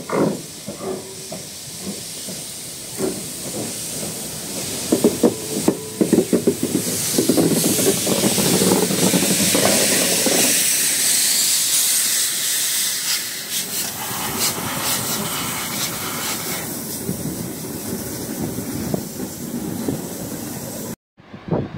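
Class 58 steam locomotive 58 311 shunting, with a loud steady hiss of steam and irregular chuffs and knocks as it works. The hiss builds from a few seconds in and the sound cuts off abruptly near the end.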